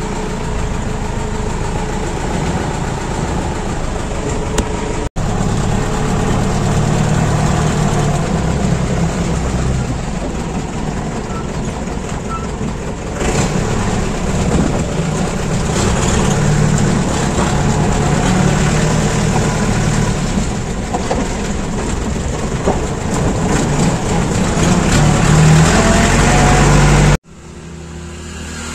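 Old jeep's engine running, heard from inside the open cab as it is driven, with a steady low rumble. The sound breaks off abruptly about five seconds in and again near the end, after which it is quieter.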